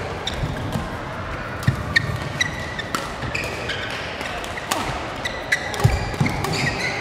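Fast badminton doubles rally: sharp cracks of rackets hitting the shuttlecock every half second or so, with short squeaks of court shoes on the mat and thudding footfalls, echoing in a large sports hall.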